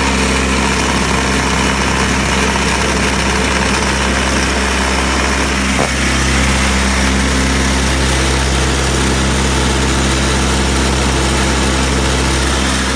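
Electric drive motor of a Craftsman LT1000 lawn tractor converted to 48-volt battery power, running steadily with a loud, even hum; the noise comes from the motor turning the tractor's belts. A brief click about six seconds in.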